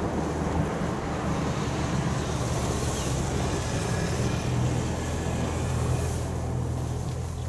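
A steady low engine drone, with wind noise on the microphone.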